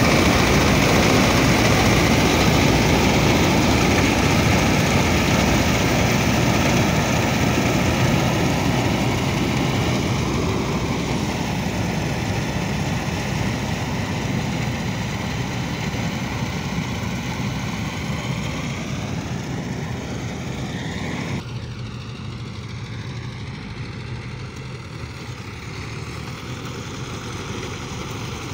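Combine harvester running steadily under load, its engine and threshing machinery making a continuous dense drone. The sound is loudest at first and slowly fades as the machine moves away, dropping suddenly about three-quarters of the way through.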